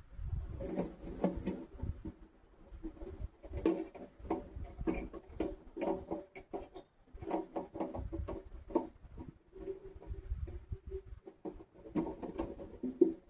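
Thin titanium wood-stove panels and rods clinking and rattling as they are handled and fitted together, with short metallic rings among many quick clicks. Wind rumbles on the microphone underneath.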